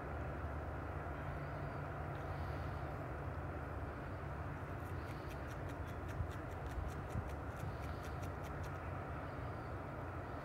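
Steady outdoor background noise with a low rumble. About halfway through comes a quick series of faint, sharp high clicks, roughly three to four a second, lasting about four seconds.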